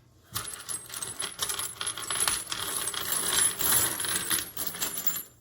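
Pile of spent brass cartridge casings of mixed calibres clinking and rattling against each other as they are raked through and sorted by hand, a dense stream of small metallic clicks for about five seconds.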